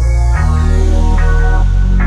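Electronic background music: synthesizer chords changing every half second or so over a heavy, steady bass, with a long falling sweep in the high end.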